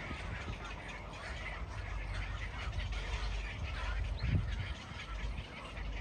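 A crowded colony of nesting birds calling, many short overlapping calls at once, over a low steady rumble.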